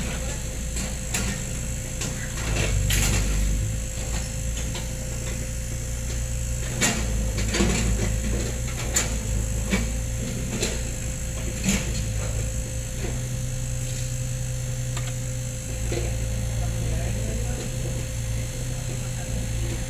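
PC30 mini excavator's diesel engine running steadily under load, with a steady whine over its drone, and irregular sharp knocks and clanks from the machine working throughout.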